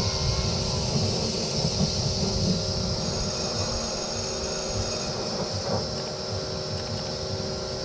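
Pressure washer running steadily, its jet of water hissing and spattering against the vehicle's underbody as it is washed.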